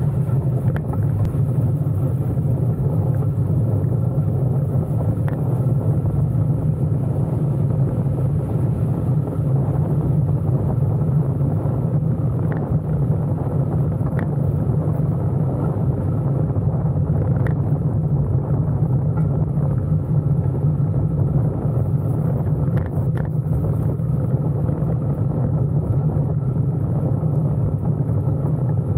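Steady low wind rumble buffeting the action camera's microphone while riding a bicycle along a dirt path, with a few faint ticks now and then.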